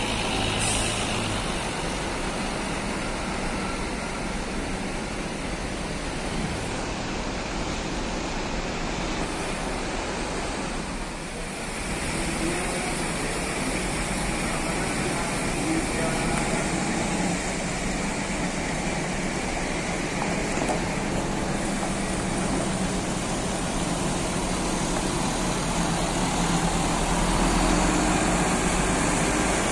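Large diesel coach engines running in a bus yard. In the second half a Volvo B11R 430 hp coach drives slowly across the yard, its engine growing louder near the end as it comes close.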